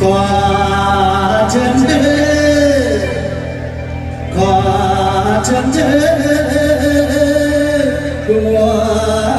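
Mor lam singing with band accompaniment: long, drawn-out sung phrases with breaks between them about four and eight seconds in.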